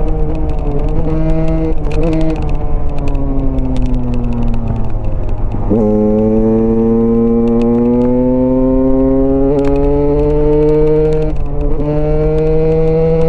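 Single-cylinder Husqvarna motorcycle engine being ridden. The revs fall as it slows, jump up sharply about six seconds in, then climb steadily as it pulls through the gear, with a brief dip from a shift near the end.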